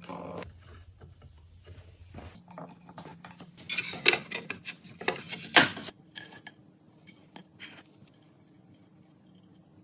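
Tools and pieces being handled on a workbench: scattered clinks and knocks, loudest in two clusters around four and five and a half seconds in, over a faint steady hum.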